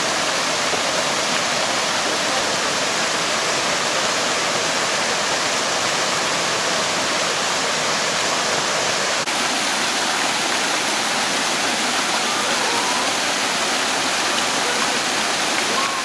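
Mountain stream below the Dzhur-Dzhur waterfall rushing over small rapids and cascades into rock pools: a loud, steady rush of falling water.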